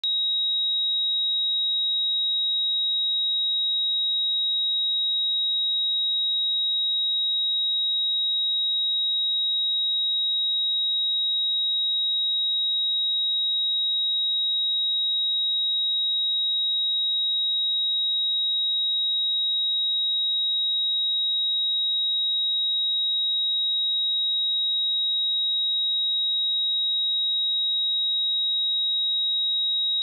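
A pure 3805 Hz sine-wave test tone, a single high-pitched steady beep held at constant pitch and level.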